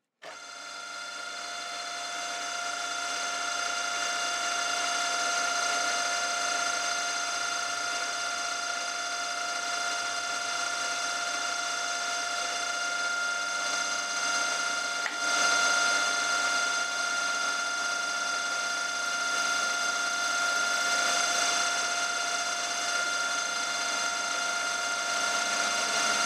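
Milling machine spindle running with a carbide end mill cutting aluminium: a steady machine whine that builds over the first few seconds and gets a little louder about halfway through.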